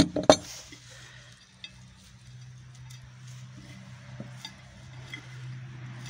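A metal meat-grinder part knocks against a ceramic plate twice at the start, as shredded balloon rubber is tipped out; then faint scattered clicks and rustling as the rubber pieces are scooped by hand, over a steady low hum.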